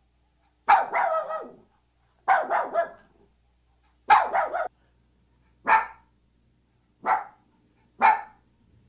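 A dog barking six times with pauses of about a second between barks; the first three barks are longer and broken into quick pulses, the last three short and single.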